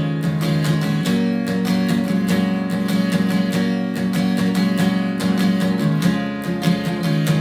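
Acoustic guitar strummed in steady chords, an instrumental passage with no singing.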